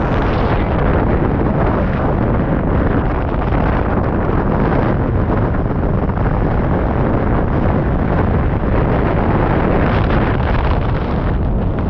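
Loud, steady wind rushing over a wing-mounted camera microphone from the airflow of a hang glider in flight, with no engine or other sound above it.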